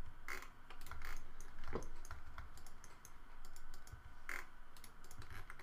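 Computer keyboard keys and mouse buttons clicking in short, irregular taps as editing shortcuts are pressed.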